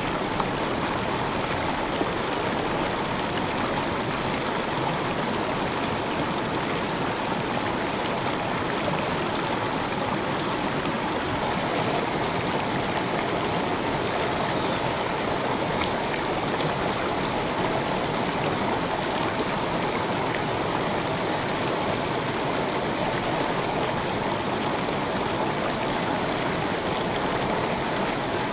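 River water flowing steadily over stones: an even, continuous rush and babble of a stream.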